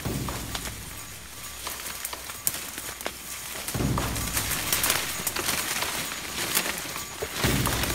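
Rustling and crackling of bamboo grass leaves and dry undergrowth as people push through dense forest brush on foot, with many small sharp snaps of twigs and leaves. It grows louder about halfway through.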